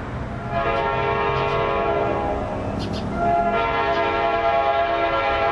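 Amtrak P42DC diesel locomotive's air horn sounding two long blasts as the train approaches, the second starting about three seconds in, over a low rumble.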